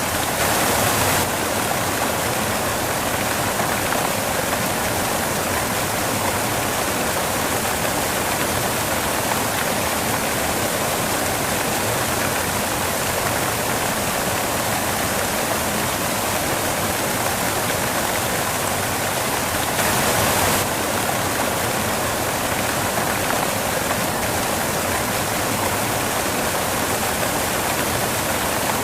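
Steady white noise, an even, unbroken hiss spread across all pitches, briefly a little louder right at the start and again about twenty seconds in.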